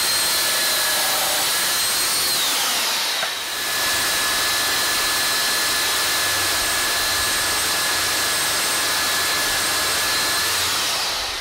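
Titan TTB653 SDS drill running a half-inch bit down into a beam: a steady motor whine over the rushing noise of the bit cutting. It eases off and picks up again about three seconds in, and the whine falls as the drill winds down near the end.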